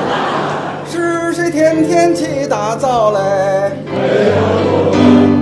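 Chinese folk-style song: a male voice sings call-and-response lines with a chorus answering, over instrumental accompaniment.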